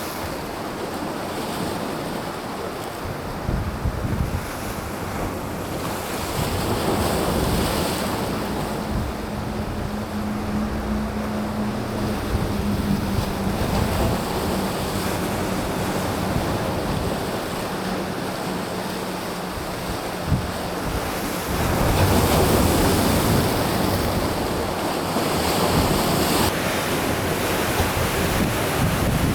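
Sea of Japan waves washing on a rocky shore, with wind buffeting the microphone. The surf swells louder about three-quarters of the way through. A low steady hum sits under it through the middle.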